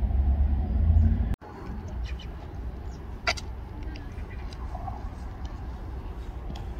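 Low rumble of a motor vehicle with a steady hum, cut off abruptly about a second and a half in. After it comes a quieter outdoor background with scattered faint clicks and one sharper click about three seconds in.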